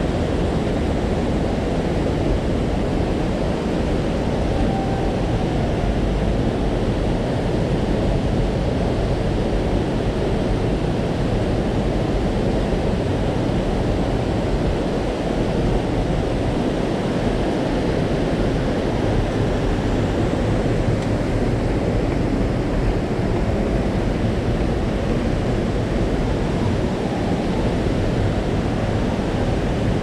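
Loud, steady rushing of a rocky gorge stream pouring over small cascades and a waterfall, an even wash of water noise with no breaks.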